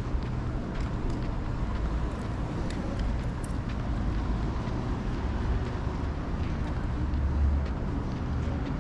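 City street ambience: a steady low rumble of passing traffic, swelling briefly near the end, with a few faint light clicks.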